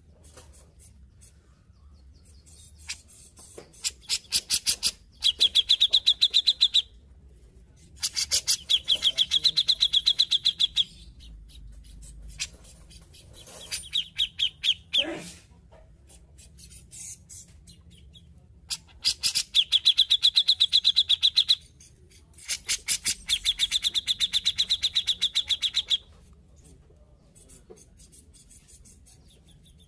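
Grey-cheeked bulbul (cucak jenggot) singing in five bouts of rapid, chattering notes, each bout lasting two to three seconds, with short pauses between.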